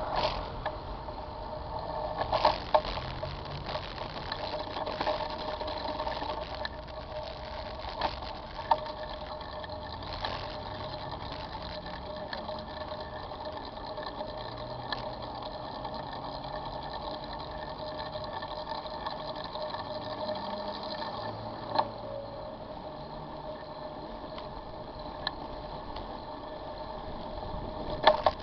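A bicycle in motion: a steady whine with light rattling and clicking, and a few sharper knocks, about four over the stretch.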